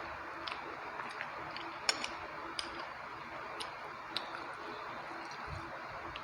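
Close-miked chewing of rice and chicken curry: scattered sharp mouth clicks and smacks, the loudest pair about two seconds in, over a steady hiss.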